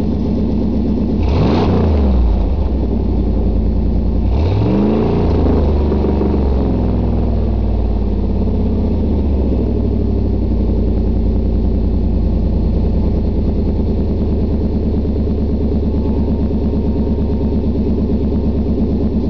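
Pickup truck engine running through a Gibson Performance Super Truck aftermarket exhaust. It is revved twice, rising and falling about one and a half and four and a half seconds in, then settles to a steady idle.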